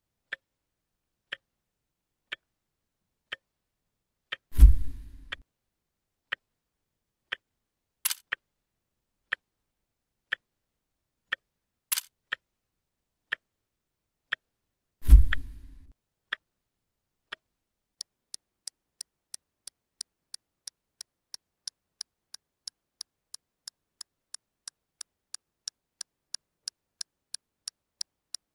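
Clock-ticking sound effect, one tick a second, switching about 18 seconds in to rapid ticking of about four a second for the fast-forward. Two loud deep thuds come about 5 and 15 seconds in, and two sharp clicks come around 8 and 12 seconds in.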